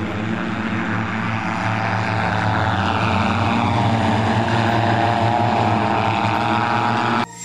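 The Lilium Jet's many electric ducted fans whine steadily as it hovers down for a vertical landing. A strand of the whine drops in pitch about halfway through, and the sound cuts off abruptly near the end.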